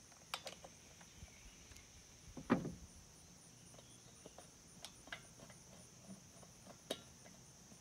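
Scattered light clicks and taps of hand tools and fasteners while the nuts and screws of a small engine's air filter housing are started, with one louder knock about two and a half seconds in. Crickets chirr steadily behind.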